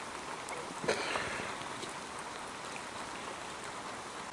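Steady rain falling, with a single sharp knock about a second in.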